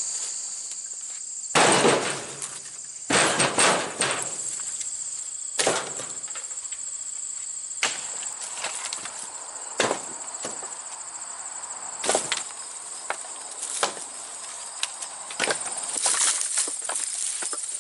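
Split firewood being thrown onto a trailer load piece by piece: irregular knocks of wood landing on wood, roughly every one to two seconds, over a steady high buzzing of insects.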